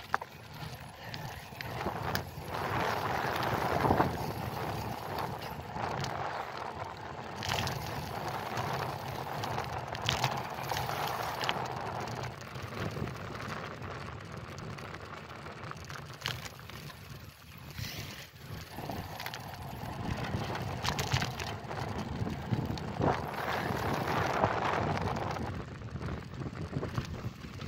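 Wind rushing over the microphone and tyre rolling noise of a road bicycle riding along a paved path, with scattered small clicks and rattles; it grows louder twice, early on and again in the second half.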